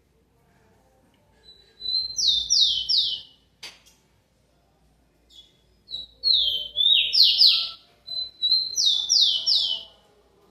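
Rufous-collared sparrow (tico-tico) singing three song phrases. Each phrase is a short steady whistle followed by a few quick falling slurred notes. A single sharp click comes between the first and second phrases.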